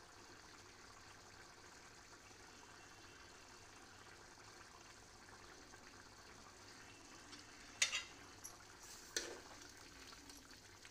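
Chicken curry simmering in a pan, bubbling faintly and steadily as its watery gravy cooks down. Near the end a steel ladle clatters against the pan twice as it goes in to stir.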